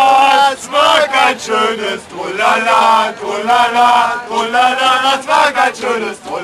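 Group of male ice hockey fans chanting a fan song together, loud. A long held note ends about half a second in, then a run of shorter sung phrases follows.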